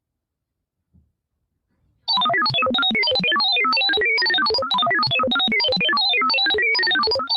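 Near silence, then about two seconds in a fast electronic keyboard melody of quick notes jumping up and down in pitch starts and runs on.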